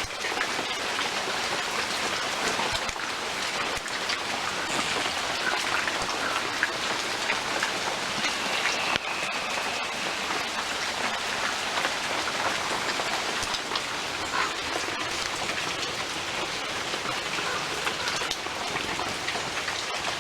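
Steady rain falling, an even hiss of drops that stops abruptly at the very end.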